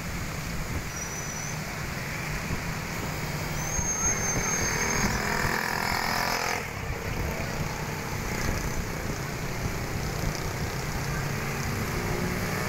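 Wind rumbling on the microphone with road traffic passing on the bridge; a thin high whistle sounds twice in the first half, and a rising rush stops abruptly a little past halfway.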